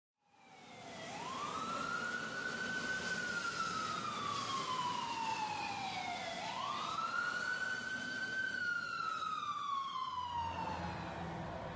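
A siren wailing in two slow cycles, each sweeping up quickly and then sliding slowly down, fading in at the start. A low hum comes in near the end.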